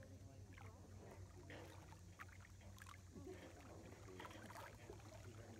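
Near silence: small lake waves lapping at the shore, with faint distant voices and a low hum.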